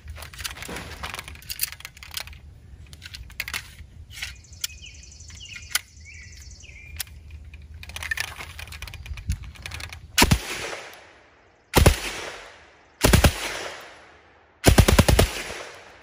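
MAT-49 submachine gun rechambered for 7.62x25mm Tokarev firing four short bursts of automatic fire about a second and a half apart, the last the longest, each with a short ringing tail. Before the bursts come fainter scattered clicks and pops.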